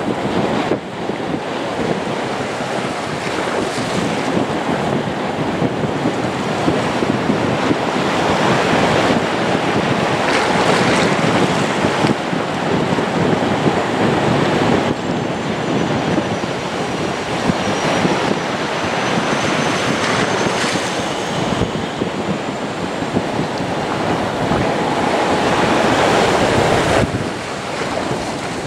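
Wind buffeting the microphone over a steady rush of surf, loud and fluctuating throughout. A faint high whine appears around the middle and climbs toward the end.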